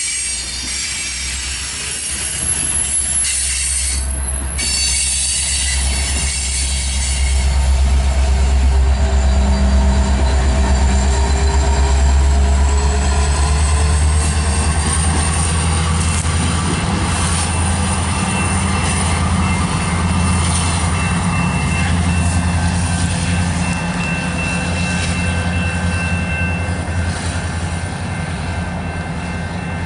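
Coal train rolling past: the steel wheels of the hopper cars squeal and rumble on the rails. About halfway through, the rear distributed-power locomotive, a BNSF EMD SD70MAC, passes, and the low drone of its diesel engine swells and then eases as it moves away.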